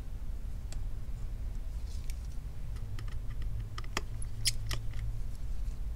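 Small, sharp metallic clicks and taps of a precision tri-point screwdriver and tiny screws being worked out of the metal connector bracket inside an iPhone 11, scattered at first and bunched together about three to five seconds in, over a low steady hum.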